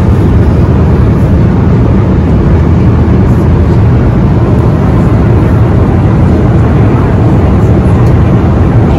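Steady deep rumble of a jet airliner cabin in flight: engine and airflow noise, even throughout.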